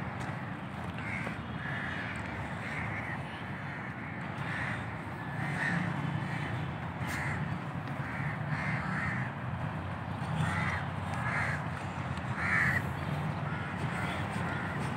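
Crows cawing again and again, many short separate calls, some overlapping, over a steady low hum.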